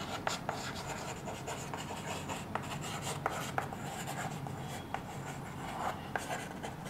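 Chalk writing on a chalkboard: faint scratching strokes with irregular sharp taps as the chalk meets the board.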